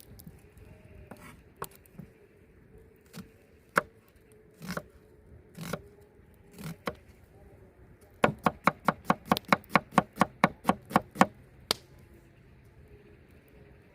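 Knife chopping food on a cutting board: a few scattered single cuts, then a quick run of about fifteen even chops, four or five a second, past the middle.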